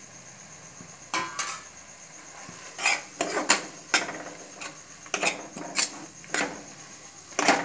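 Metal spoon scraping and clinking against the inside of an aluminium pressure cooker as a thick masala is stirred, in irregular strokes starting about a second in.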